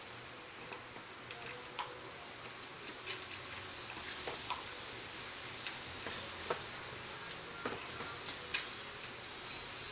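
Pets eating: irregular light clicks and taps, a few with a short ring, over a steady hiss.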